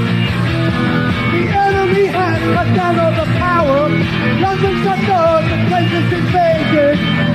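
Punk rock band playing live and loud: drums, bass, guitar and keyboards, with a wavering melodic line over the top.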